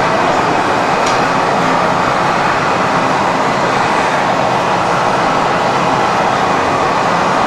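Steady, loud rushing roar of a glass-workshop gas burner or furnace blower, running without change.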